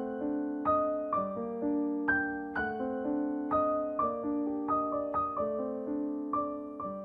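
Background piano music, calm single notes and chords struck at an even pace about twice a second, each ringing out before the next.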